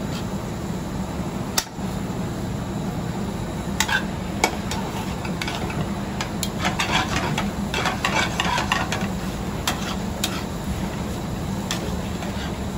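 Metal tongs clinking and scraping against an aluminium sauté pan as noodles are stirred and tossed over a gas burner, in scattered sharp clinks over a steady low hum.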